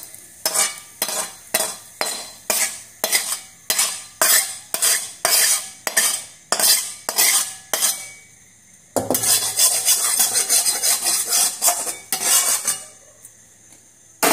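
Metal spatula scraping and knocking scrambled egg out of a metal pan into a steel bowl, in regular strokes about two a second. After a short pause about eight seconds in comes a stretch of faster, continuous scraping, which stops shortly before the end.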